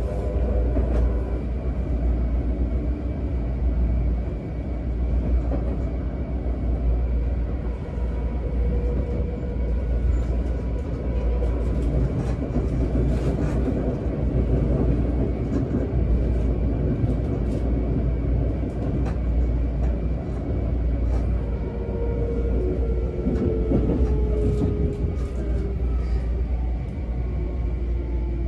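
Interior running noise of a Seibu 10000 series train with a Hitachi IGBT-VVVF inverter: a steady rumble of wheels and track under the car, with the faint whine of the inverter and motors. The whine glides down in pitch over the last few seconds as the train slows.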